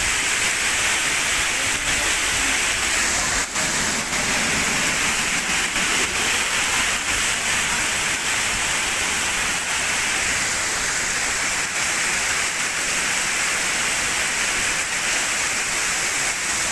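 Heavy rain pouring onto an asphalt street and pavement, a loud steady hiss of countless drops hitting the wet ground.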